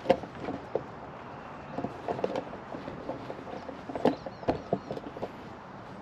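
Footsteps on loose dirt and sand: a run of uneven scuffs and thumps, heaviest near the start and again about four seconds in.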